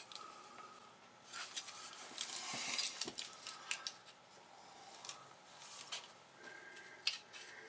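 Hard plastic model-kit fuselage halves being handled and pressed together: light scraping and rubbing of plastic on plastic, strongest about one to three seconds in, with a few sharp little clicks.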